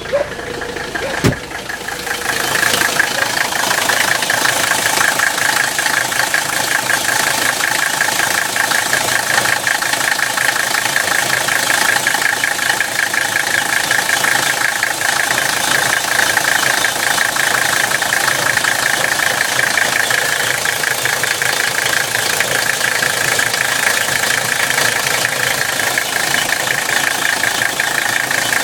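Mercedes-Benz 300CD's five-cylinder turbodiesel engine running steadily with a dense diesel clatter and a strange grinding sound that the owner cannot diagnose, said to be loudest around 1,500 rpm. A single sharp knock comes about a second in, after which the engine sound gets louder and holds steady.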